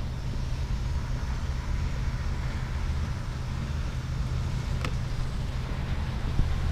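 Iowa Traction steeple-cab electric locomotive hauling loaded gondolas past: a steady low rumble mixed with wind on the microphone, with one sharp click about five seconds in.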